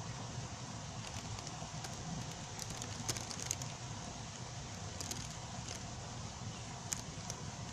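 Steady background hum and hiss with a few short, faint clicks in the middle.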